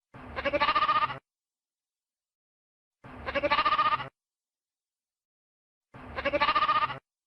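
Lamb bleating: three near-identical bleats about three seconds apart, each about a second long and quavering, with silence between them.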